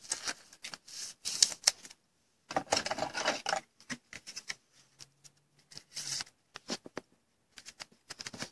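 A trading card handled in the fingers: an irregular run of short rustles, scrapes and clicks of card stock, in clusters with brief gaps.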